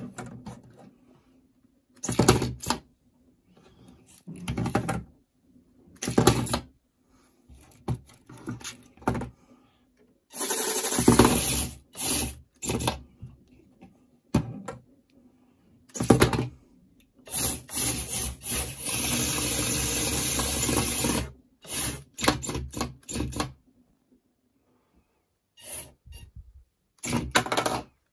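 Small 4WD antweight combat robot driving on a wooden desk: its geared drive motors whir in repeated short bursts, with longer runs of a few seconds about ten seconds in and again past the middle. The wheels and chassis bump and rub on the wood.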